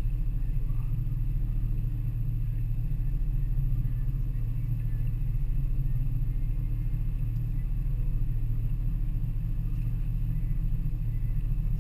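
Twin Suzuki outboard motors running steadily at low speed, a constant low hum with no change in pitch.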